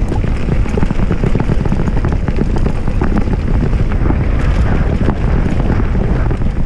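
Polygon Siskiu D5 full-suspension mountain bike descending a dirt trail at speed: steady tyre rumble with many small clicks and rattles from the bike, heavily buffeted by wind on the GoPro microphone. About halfway through the tyres roll across a wooden boardwalk.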